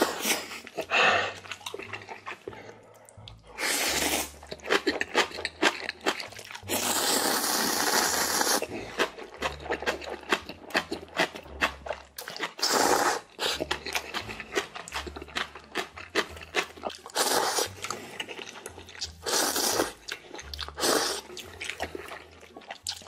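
A person slurping spicy instant noodles and broth: about half a dozen loud slurps, the longest about two seconds, with wet chewing in between.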